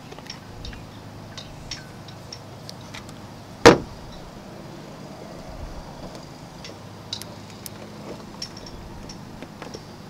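Light clicks and taps of glued wooden strips being handled and laid onto a plastic battery charger, with one sharp, loud knock a little under four seconds in.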